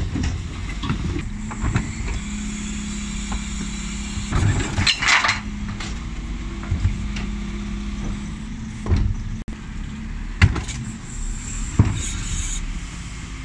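Dennis Elite 6 bin lorry's engine running with the Terberg OmniDEL rear bin lift working hydraulically, as two wheelie bins are raised, tipped and lowered. Rubbish tumbles out of the bins into the hopper about five seconds in, and sharp metallic knocks from the bins and lift come near the end.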